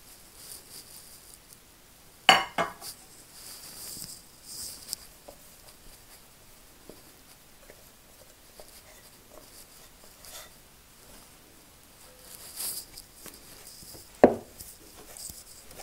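Bread dough being mixed and kneaded by hand in a glass bowl and then on a wooden board: soft rubbing and squishing handling sounds, with two sharp clinks against the glass bowl about two seconds in and a single sharp knock near the end.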